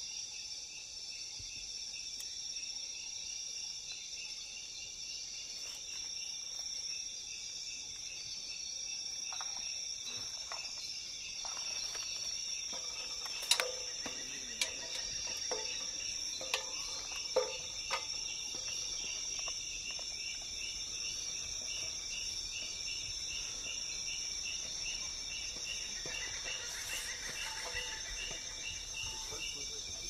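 Tropical rainforest insect chorus: steady high-pitched trilling and buzzing from several insects, one pulsing in an even rhythm. A few sharp knocks stand out about halfway through.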